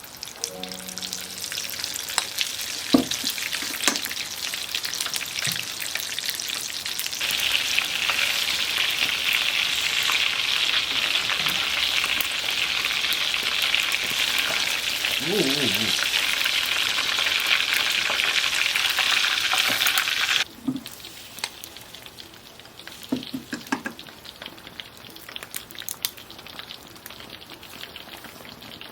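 Food frying in hot oil: a steady sizzle that grows louder about seven seconds in and stops suddenly about twenty seconds in, leaving a softer patter.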